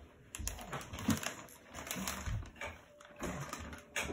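Irregular crinkling and light clicks from a soft plastic pack of baby wipes as a baby handles it on the floor.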